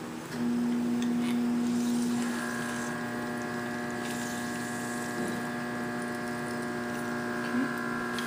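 Steady electrical hum from an appliance: one low tone, joined about two seconds in by several higher tones, all cutting off together at the end.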